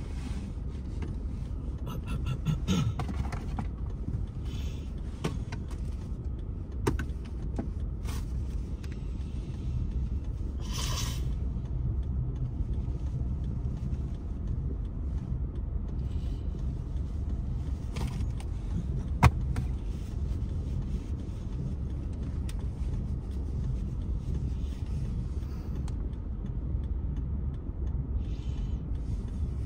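Steady low rumble inside a car stopped at a traffic light, with a couple of short clicks.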